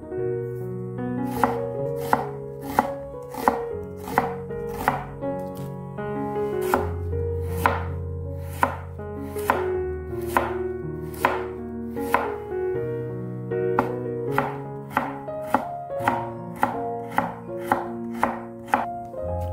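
Chef's knife slicing and julienning a carrot on a wooden cutting board: sharp, even chopping strokes about one and a half a second, starting about a second and a half in, over soft background music.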